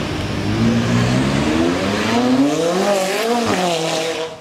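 Sports car engine revving hard as the car accelerates away: the pitch climbs, dips briefly and climbs again, then falls off before the sound cuts off suddenly.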